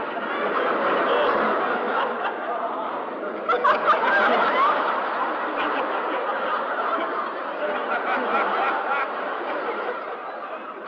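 A crowd laughing together, many voices chuckling and snickering at once, with a louder swell of laughter about three and a half seconds in.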